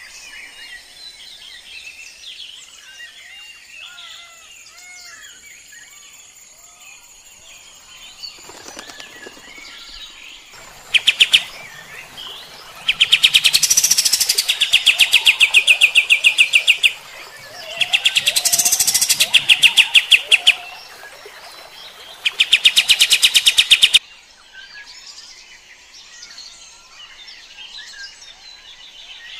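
Kapas tembak, a bulbul kept as a songbird, singing: faint scattered chirps at first, then from about halfway a loud, very fast run of evenly repeated notes, given in three long bursts that stop abruptly near the end, the rapid-fire 'tembak' song.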